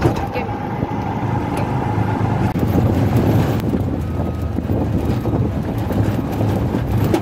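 Auto-rickshaw riding: its small engine running steadily under a low rumble of road and wind noise.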